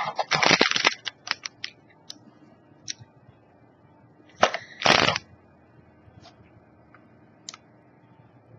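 Plastic snack packaging crinkling as it is handled: a rustling burst at the start and another about four and a half seconds in, with a few light clicks between.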